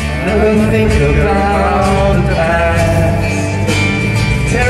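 Rock band playing live, a male lead voice singing long held notes over bass guitar and drums.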